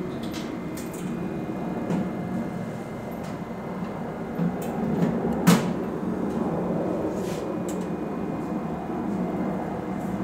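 Steady low hum of elevator machinery in the hoistway, with scattered light clicks and one sharp metallic knock about halfway through.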